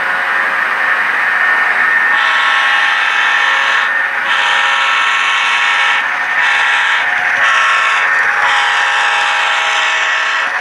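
Sound-equipped model diesel locomotive blowing its horn in five blasts, long, long, short, short, then a long one held, over a steady running hum of the locomotive sound and train.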